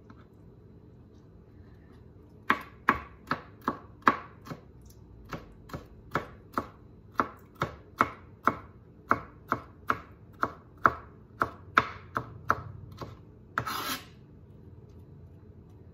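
Chef's knife chopping dill pickle on a plastic cutting board: sharp knocks about two or three a second, starting a couple of seconds in. Near the end the blade makes a short scrape across the board as it gathers the pieces.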